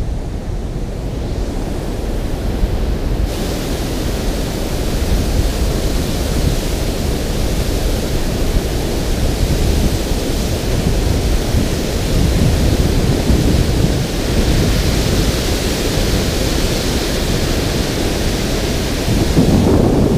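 Water rushing over a spillway in a steady, loud noise, with wind buffeting the microphone in gusts. The hiss of the rushing water grows louder about three seconds in.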